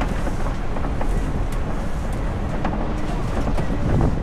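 Safari ride truck running over a rough track: a steady low engine and road rumble, with scattered knocks and rattles and a heavier bump near the end.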